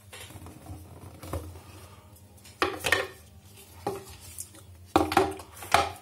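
A Samsung Galaxy A8+ cardboard retail box being handled and opened: a string of knocks, scrapes and rustles, the loudest clusters about halfway through and near the end.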